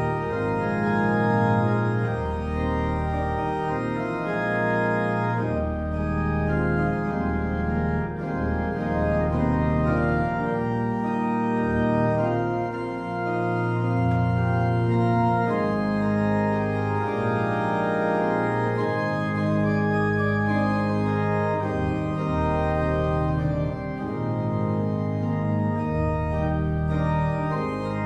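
Church organ playing slow music in held chords with a deep bass line, the notes changing every second or so.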